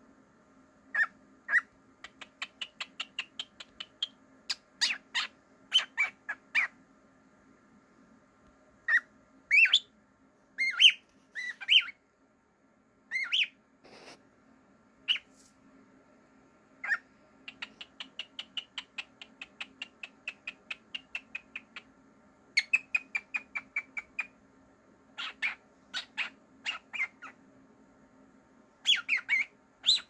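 Cockatiel chirping: single chirps and quick runs of short chirps at about five or six a second, with a few rising whistled calls.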